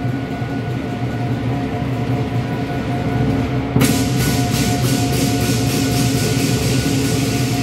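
Southern lion dance percussion: the big lion drum beating under ringing gong and cymbals. About four seconds in, a fast, even run of cymbal clashes starts and keeps going.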